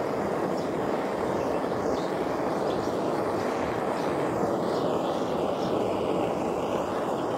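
Gas blowtorch flame running with a steady roaring hiss as it scorches carved wood.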